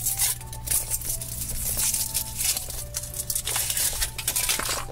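Foil wrapper crinkling and tearing as it is peeled off a Kinder Surprise chocolate egg, a dense run of crackles.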